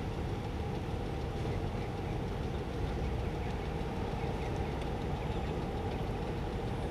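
A heavy vehicle engine idling steadily with a low, even rumble.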